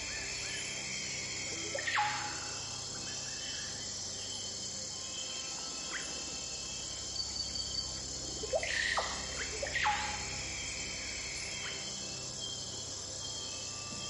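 Steady chorus of insects, with a bird giving sharp, quickly falling calls about two seconds in and a quick run of three or four more near the middle.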